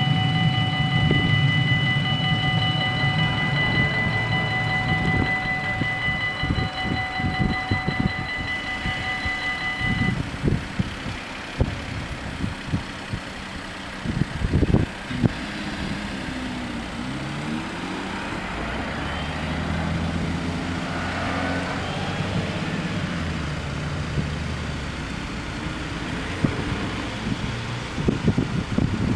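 Level crossing warning bells ringing steadily over the fading rumble of a passing train, stopping about ten seconds in. Road traffic then moves off across the crossing, with a few thumps and the engines of a bus and cars.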